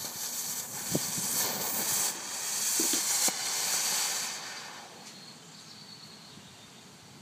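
Smoke ball's fuse sputtering as it burns, then the smoke ball venting smoke with a loud hiss that dies down after about four and a half seconds to a faint steady hiss, with a few small pops along the way. The fuse was lit electrically by a thin copper wire shorted across a 12-volt battery charger.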